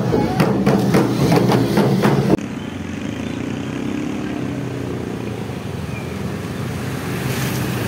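Rhythmic drumming of a street procession for about the first two seconds, cut off abruptly. Then the engines of several scooters and motorcycles running steadily as they ride up a road.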